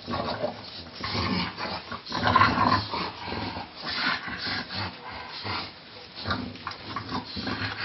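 English bulldog growling in rough, irregular bursts, sounding like a dog fight, loudest a couple of seconds in.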